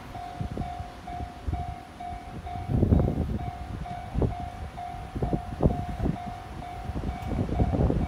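Japanese railway level-crossing warning bell ringing its electronic 'kan-kan' tone, about two strikes a second. From about three seconds in, irregular low gusts of wind buffet the microphone.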